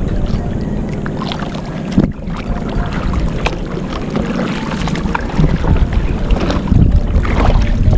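A wooden paddle dipping and splashing in seawater as a small boat is paddled, over a steady low rumble of wind on the microphone. There is a sharp knock about two seconds in.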